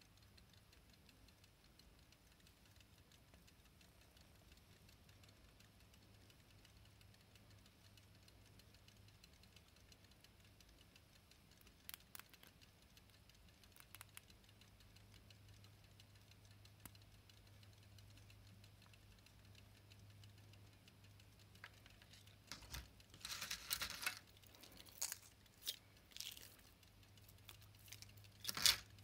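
Faint rapid ticking of antique pocket watches, with a couple of small clicks from a watch key turned in a key-wound pocket watch. In the last several seconds, metallic clinks and rattles of the silver watches being handled, loudest near the end.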